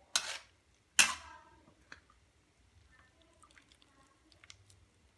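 A utensil clatters twice against a metal wok, loud and sudden, about a second apart near the start, followed by faint wet ticks as saucy noodles are lifted out and drip.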